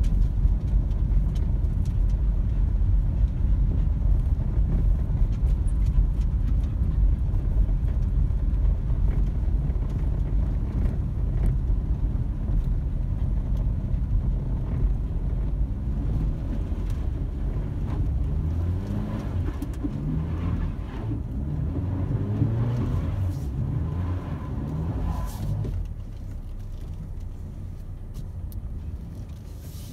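A vehicle driving uphill on a snowy road, heard from inside the cab: a steady low rumble of engine and tyres, with a wavering sound rising and falling through the second half. The rumble drops quieter near the end as the vehicle slows.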